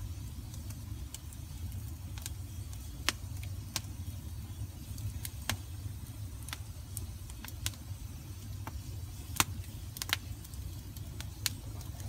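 Wood campfire burning, with sharp crackles and pops coming irregularly about once a second over a steady low rumble.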